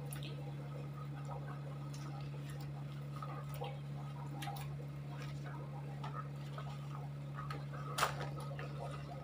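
Scattered faint clicks and light taps of handling over a steady low hum, with one sharper click about eight seconds in.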